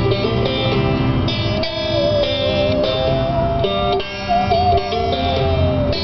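Instrumental break of a folk song: banjo picking and accordion chords under a bowed musical saw carrying a wavering, sliding melody line.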